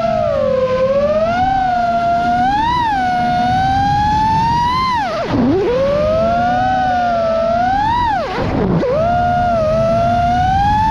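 FPV freestyle quadcopter's brushless motors whining, heard from the onboard camera, the pitch rising and falling with the throttle. Twice the whine drops sharply and swoops back up, about halfway through and again about three seconds later, as the throttle is chopped and punched again.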